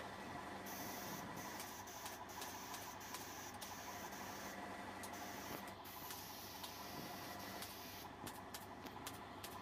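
Low steady hum with scattered light clicks and taps from upholstery work on a quilted headboard panel.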